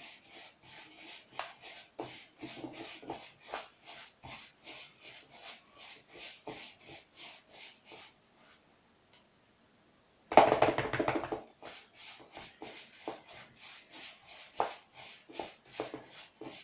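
Hands kneading softened butter and coconut flakes in a plastic bowl: a regular rubbing and squishing, about three strokes a second. It stops briefly about eight seconds in, and a short, louder noise follows about ten seconds in before the rubbing resumes.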